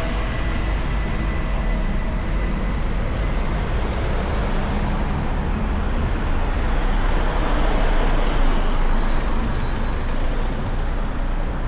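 Road traffic: vehicle engines running and tyres on the road with a steady deep rumble, and a vehicle passing close, louder about eight seconds in.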